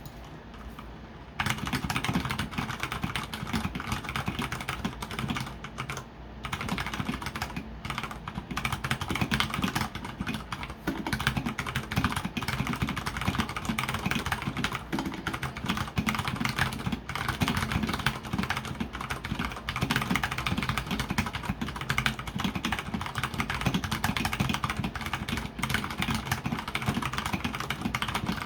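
Fast continuous typing on an Akko 3068 mechanical keyboard with Cherry MX Brown tactile switches, the keyboard resting on a hard surface. The key clatter starts about a second and a half in and pauses briefly around six seconds.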